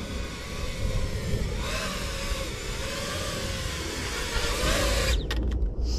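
5-inch FPV quadcopter on Gemfan Hurricane 51466 V2 three-blade props, its propellers buzzing with a loud, wavering whine. The whine grows louder about a second and a half in, then drops away abruptly about five seconds in.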